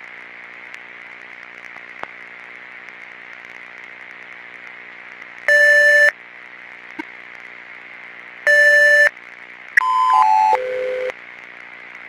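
Retro computer terminal sound effects over a steady electrical hum and hiss: two loud electronic beeps about three seconds apart, then a quick series of four tones stepping down in pitch, a shutdown sound.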